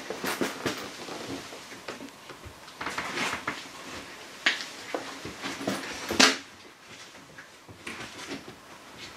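Scattered rubbing, scraping and knocks as a removed Talbot Express windscreen and its rubber seal are handled, with one louder knock about six seconds in.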